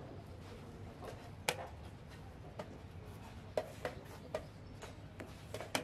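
Wooden chess pieces being set down on a board and chess clock buttons being pressed during a fast game: a scattered series of short, sharp knocks and clicks, the loudest about one and a half seconds in.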